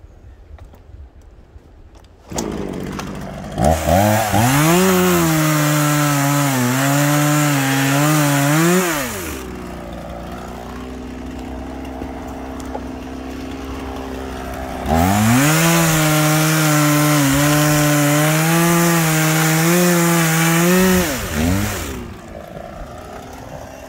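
Two-stroke chainsaw cutting wood: the engine starts about two seconds in, goes to full throttle for a cut of about five seconds with its pitch dipping and wavering under load, drops back to idle, then runs a second cut of about six seconds before settling to idle near the end.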